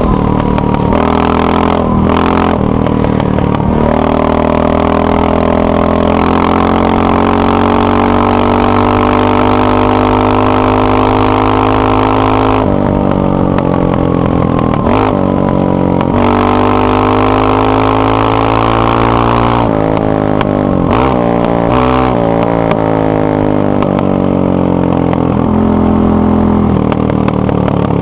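Honda XR650R's single-cylinder four-stroke engine on its stock exhaust, running loud and steady. The revs climb slowly and hold, then drop sharply, several times over.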